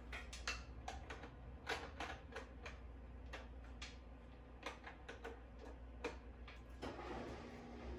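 Faint, irregular clicks and taps of a cable connector being handled and plugged into the ports of a portable projector.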